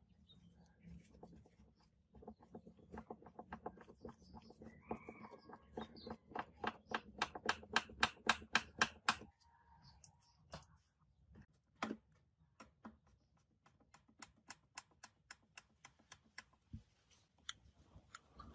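Screwdriver turning screws through a speaker's metal front panel into its cabinet: a run of sharp, even clicks that speed up to about six a second and stop abruptly about nine seconds in, followed by scattered single clicks.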